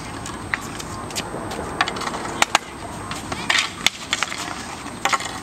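Street hockey on asphalt: plastic-bladed sticks scraping and clacking on the pavement, with several sharp knocks of sticks striking a tennis ball or each other at uneven intervals.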